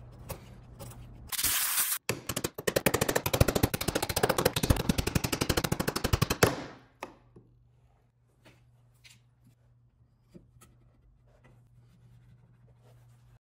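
A steel hand chisel scraping and paring in a wooden mortise: a short scraping rasp, then a fast, even run of chattering clicks for about four seconds that stops abruptly. After that, only a few faint ticks over a low steady hum.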